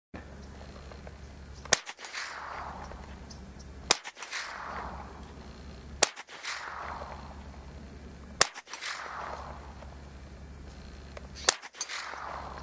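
Five .22 Long Rifle rifle shots at a steel plate, roughly two seconds apart. Each is a sharp crack followed by an echo that falls away in pitch, over a steady low background rumble.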